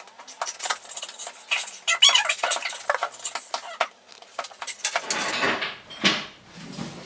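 A knife and fingers working at a tightly sealed product box: a run of small clicks and scratches, then a louder rustling scrape about five seconds in as the packaging gives.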